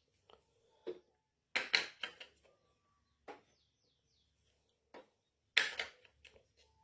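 Miniature toy kitchen pieces being handled, with a series of sharp clicks and clatters as small parts knock together. The loudest knocks come at about two seconds in and again near the end, and a few are followed by a brief faint ring.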